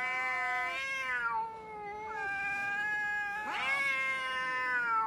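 Two domestic cats in a territorial standoff, trading long, drawn-out yowls that bend slowly in pitch. The calls follow one another almost without a break and sometimes overlap.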